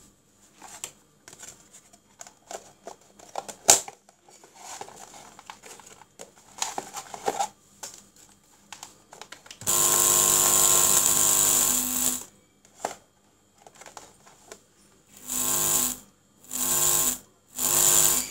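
Light clicks and handling of a plastic box, then a small electric motor buzzing steadily for about two and a half seconds, stopping abruptly, and starting again in three short bursts near the end.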